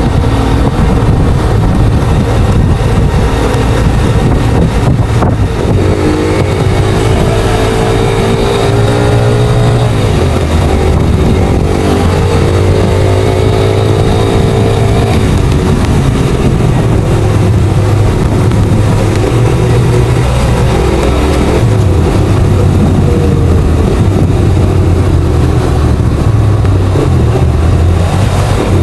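Motorcycle engine running under way, with wind rushing on the microphone. The engine note climbs twice in the first half as the bike accelerates, with a break between the two climbs like a gear change, then runs on with smaller rises and falls.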